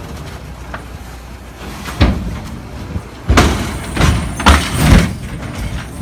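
A raised end-dump trailer full of boulders toppling over onto its side: a low rumble of the truck, a sharp bang about two seconds in, then a heavy crash of steel and rock with several loud impacts.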